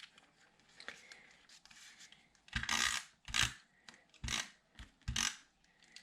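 Paper being handled: faint rustling, then from about halfway four short rustling scrapes, roughly one a second.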